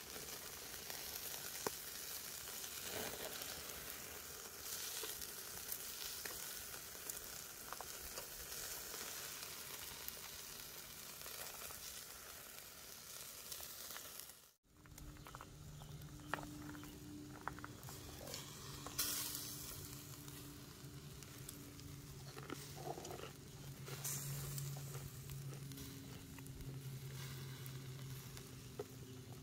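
Steak sizzling and spitting as it fries in a hot pan. After a short break about halfway, a low steady hum runs under the sizzle.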